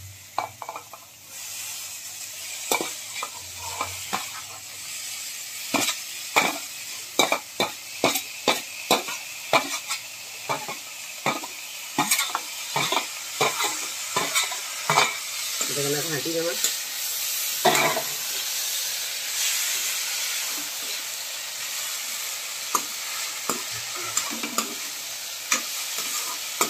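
Boiled sweet corn kernels frying in hot oil in a metal kadai, sizzling steadily, with a metal ladle repeatedly scraping and clicking against the pan as they are stirred. The sizzle swells about a second in as the corn goes into the oil.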